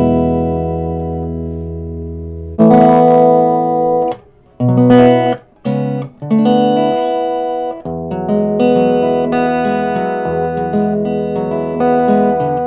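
D&D Django Jr mahogany baby acoustic guitar being played. A chord rings and fades, then a new strum about two and a half seconds in is followed by a few short chords stopped dead by muting. After that come fingerpicked notes.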